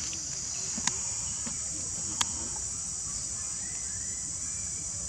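Steady high-pitched insect chorus buzzing, with two sharp clicks about one and two seconds in.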